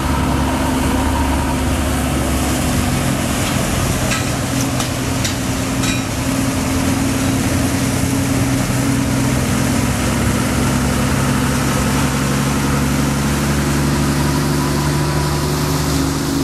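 A vehicle engine running steadily under a broad rushing noise, its pitch shifting slightly about ten seconds in, with a few faint clicks about four to six seconds in.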